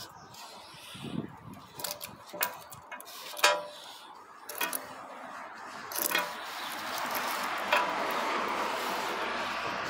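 Stainless steel watch bracelet links and folding clasp clinking and clicking as the watch is picked up and turned over: a string of sharp metallic clicks, the loudest about three and a half seconds in. A steady hiss from handling follows in the last few seconds.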